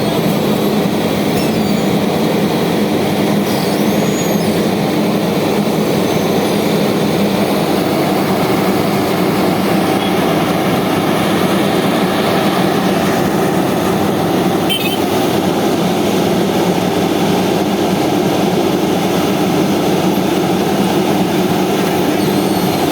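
Engine of heavy road-building machinery running steadily, a constant mechanical drone.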